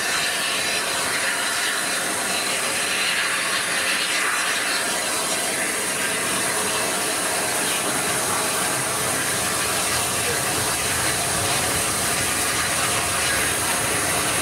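Steady loud hiss of steam from a standing rebuilt Bulleid light pacific steam locomotive. In the last few seconds a lower rumble grows as another steam engine approaches on the next track.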